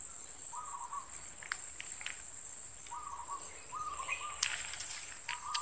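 Steady high-pitched insect chirring, with a few short calls repeated several times and some light clicks.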